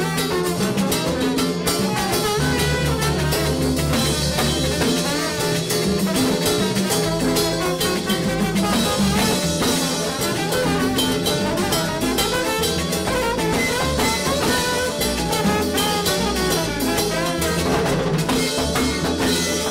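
Live salsa band playing a steady groove, with violin, trombones, drum kit and Latin percussion.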